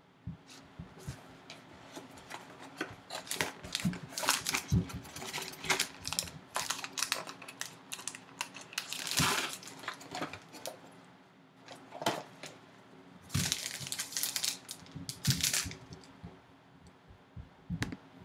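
A cardboard trading-card box being opened by hand and a foil-wrapped card pack taken out and handled: irregular scrapes, taps and crinkling foil.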